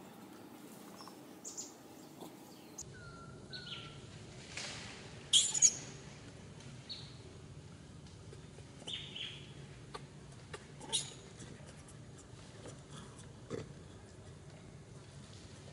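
Scattered short, high-pitched animal chirps, the two loudest coming in quick succession about five seconds in, over a faint steady outdoor background.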